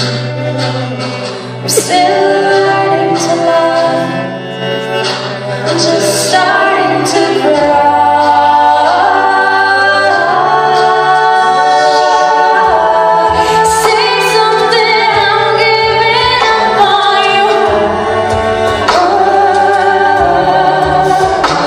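Live performance of a slow pop ballad: a woman sings the lead over several voices singing in harmony, with low bass notes held for a second or more each. It is heard from the audience in a large hall.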